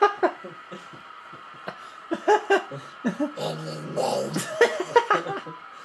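A person making a string of short, abrupt throat noises that sound like coughing, with a longer held voiced sound from about three and a half to five and a half seconds in.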